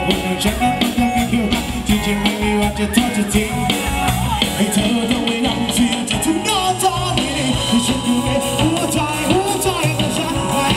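A live band plays a Latin-style dance song for basslope line dancing, with a drum kit and a shaker keeping a steady beat. A singer's voice comes through more plainly from about halfway through.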